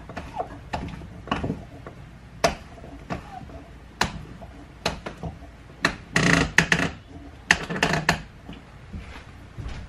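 Wooden boards and wooden clamps knocking and clattering as glued boards are lined up and clamped, with irregular sharp knocks and two longer rattling scrapes about six and eight seconds in.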